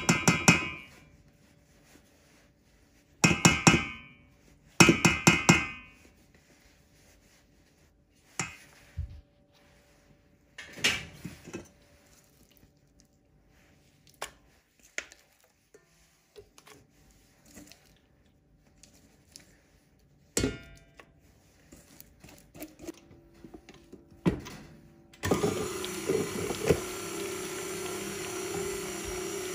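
Three sharp, ringing metal clanks on the stainless steel mixer bowl in the first six seconds, then scattered light knocks and scrapes. About 25 seconds in, a KitchenAid stand mixer starts and runs steadily, beating cream cheese.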